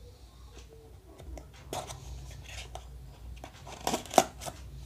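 A knife blade cutting and scraping at the seal of a small cardboard box. Scratchy scraping and scattered sharp clicks, the loudest about four seconds in.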